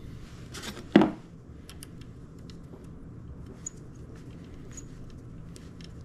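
Hands fitting a bolt-on piercing (saddle) valve onto a copper refrigerant line: a brief rustle and one sharp knock about a second in, then scattered light metal clicks and taps from the valve bracket and screws, over a low steady hum.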